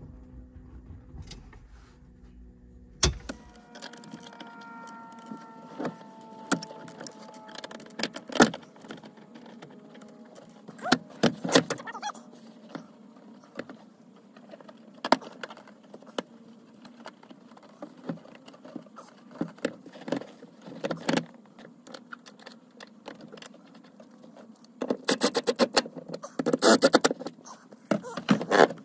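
Jeep Wrangler JK front seat and compressor mount being handled: a sharp clack as the seat is moved on its rails, then scattered metallic clicks and knocks. Near the end comes a run of rapid rattling.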